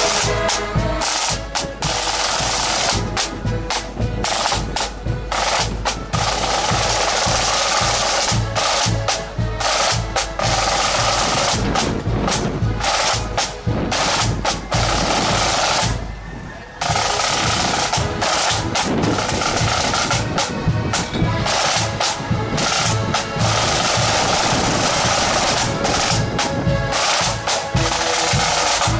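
Marching band snare drums playing a rattling, rolling beat with a bass drum underneath. It breaks off briefly a little past halfway, then carries on.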